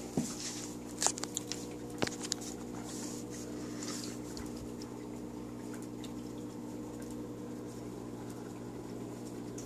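Steady hum of aquarium equipment with light water sounds, and a few sharp clicks or splashes in the first two seconds.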